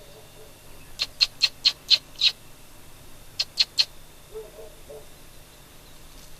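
Predator-call squeaks imitating a small animal in distress: six quick high-pitched squeaks, a pause, then three more, used to call in coyotes.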